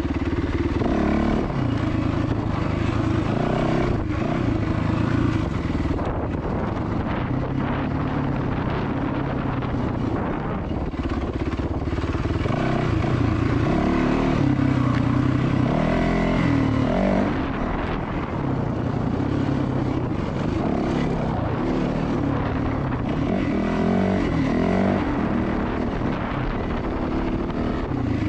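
Yamaha dirt bike's engine under hard riding on a trail, the revs rising and falling over and over as the throttle is worked.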